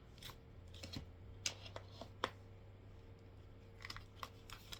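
Tarot cards being shuffled and handled, heard as faint, scattered snaps and clicks, about eight of them, while clarifier cards are drawn.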